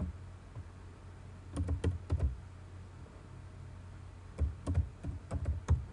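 Computer keyboard being typed on, in two short runs of key clicks: one about a second and a half in, and another from about four and a half seconds.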